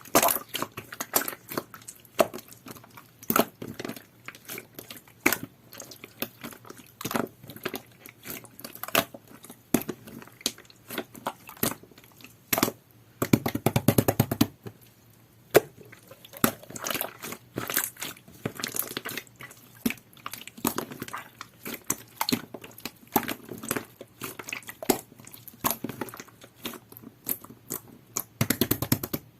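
Jelly-textured clear slime being squeezed and pressed by hand, giving a steady stream of sticky clicks and small wet pops. Denser runs of squelching come about halfway through and again near the end.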